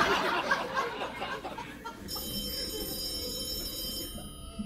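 Audience laughter dies away, then about two seconds in a telephone ringtone sounds: a steady, high electronic ringing that lasts about two seconds.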